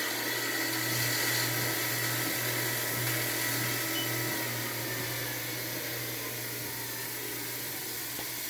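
UREVO treadmill running with a steady motor hum and whine that the owner calls a really big noise. He says it ran smoothly when new and is still loud even though he has oiled it.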